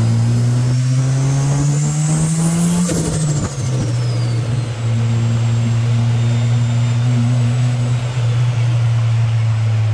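Rotary engine running, its pitch climbing steadily for about three seconds, then dipping and holding a steady note. A faint high whine rises and falls about three seconds in.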